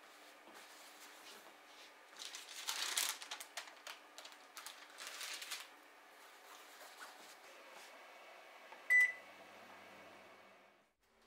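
Indoor handling noise: a few seconds of rustling and crackling, then one short, high electronic beep from a kitchen appliance about nine seconds in.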